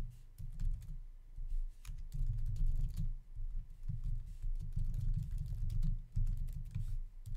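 Typing on a computer keyboard: a quick, irregular run of keystroke clicks.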